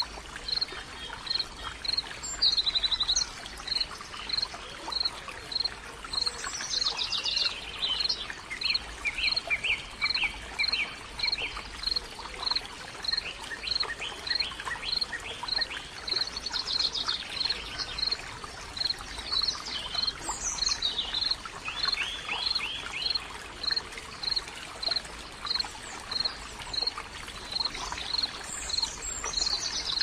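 Wild birds singing over a steady rush of running water. Throughout, a high note is repeated evenly about twice a second, while other birds add trills and chirps, the most prominent clusters at about 7 to 11 seconds in and again around 20 to 23 seconds.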